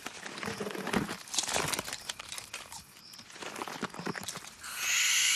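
Leopard clawing and biting at the dry wood around a tree hollow, trying to widen the entrance: scattered scrapes, cracks and clicks. Near the end a loud, steady hiss starts.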